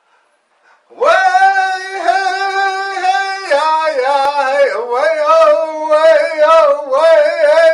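A man singing alone into a studio microphone, starting about a second in and holding long notes with a pulsing waver in pitch.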